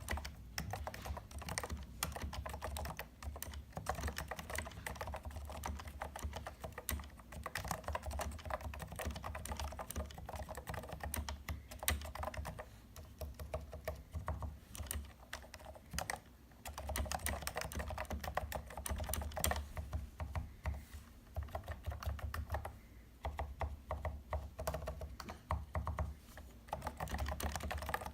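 Typing on a Topre Type Heaven keyboard modded with KBDfans sliders (lubed), Silence-X O-rings and foam in the stabilizers to quiet them. Its rubber-dome keys are struck in rapid runs, with short pauses about halfway and two-thirds through.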